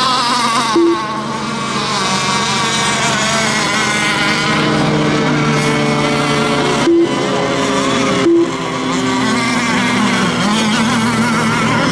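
Several radio-controlled racing boats running on the water, their small engines buzzing at different pitches that waver as they speed up and slow. Three short low beeps cut through, about a second in and again near seven and eight seconds.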